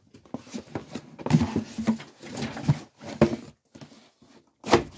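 Cardboard box and packaging being handled: irregular rustling and scraping with light knocks, and a louder knock near the end.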